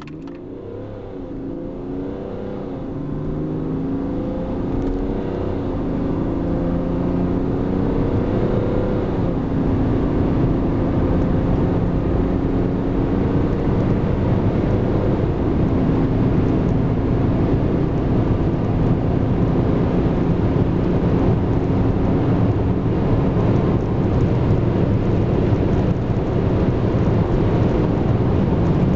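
BMW 525d Touring F11 diesel engine under hard acceleration, heard inside the cabin, its note rising and dropping back at upshifts. Road and wind noise builds as the car gains speed toward about 200 km/h.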